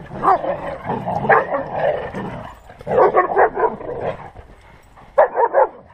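German Shepherd barking and yelping in rough play with other dogs, in several short bursts with brief pauses between. It sounds terrible, but this is ordinary play noise, not aggression.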